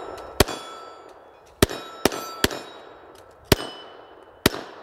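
Six shots from a Smith & Wesson M&P380 Shield EZ .380 ACP pistol, fired at an unhurried, uneven pace. The shots are followed by the ringing clang of steel plate targets being hit.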